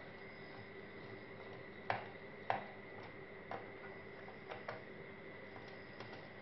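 Light clicks and taps from small laptop parts being handled, about eight in all, the two loudest about two and two and a half seconds in. Under them runs a steady faint hum.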